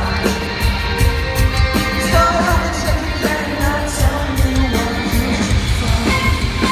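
Rock band performing live, with a singer's vocal line over steady drums and guitars.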